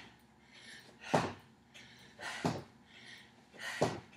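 Squat jumps: feet land three times, about 1.3 s apart, each landing with a forceful exhale and softer breaths in between.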